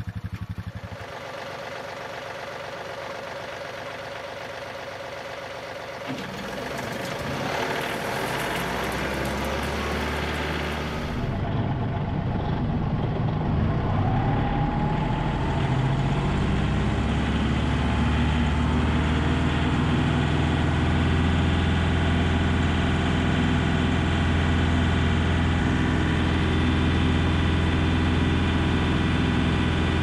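John Deere 2038R compact tractor's three-cylinder diesel engine running with the rear PTO engaged, driving a Frontier WC1105 wood chipper with no wood being fed. The sound grows louder through the first half, with a brief rising whine about 14 seconds in, then runs steady and louder at raised throttle.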